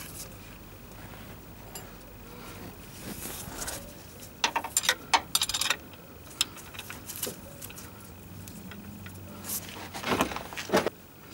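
Short clicks and light metallic rattles from hand work at an engine's accessory belt tensioner, coming in two clusters, about four seconds in and again near the end.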